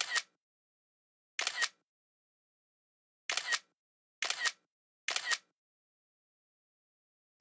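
iOS camera app shutter sound, a short double click, repeating five times at uneven gaps of about one to two seconds, with another right at the end. Each click marks a photo being taken for a stop-motion frame.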